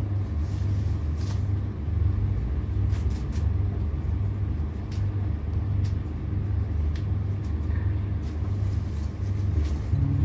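Steady low rumble throughout, with a few faint clicks and rustles from hands stripping the outer petals off red roses.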